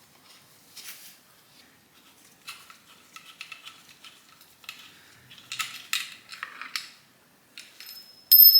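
Metal hand tools and engine parts clinking and scraping in scattered light taps, with a louder metallic clatter and a brief high ring near the end.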